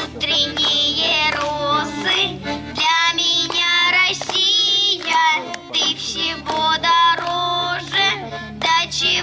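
A child singing a song with musical accompaniment.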